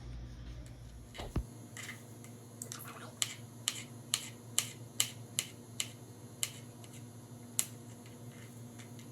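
Knife slicing mushrooms on a cutting board: a run of crisp clicks about twice a second, with a pause before one last cut near the end.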